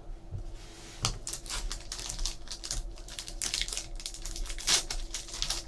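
Trading cards being handled and flipped through by hand: a quick, irregular run of light clicks and snaps.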